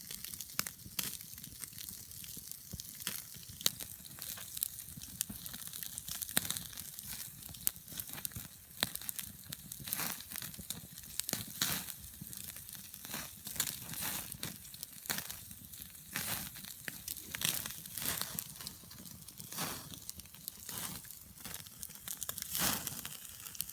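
Dense, irregular crackling and sizzling from a steak cooking over a wood campfire.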